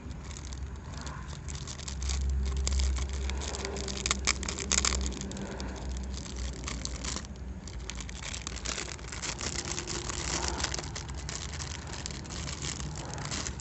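Plastic packaging crinkling and rustling, with irregular light clicks and rattles, as a toy bulldozer is unwrapped and handled. A low steady hum runs underneath.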